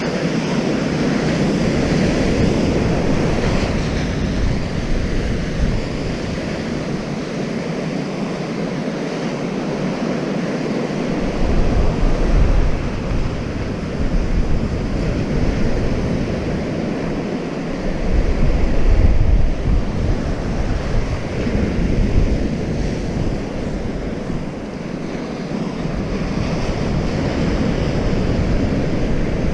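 Surf washing on a sandy beach, a steady rushing noise, with gusts of wind buffeting the microphone in low rumbles at times.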